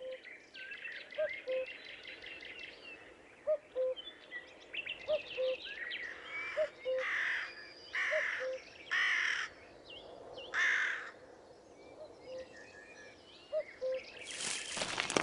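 Birds calling: a low two-note call repeats about every second and a half under scattered high chirps and trills, with four harsh calls in the middle. A louder rushing noise starts near the end.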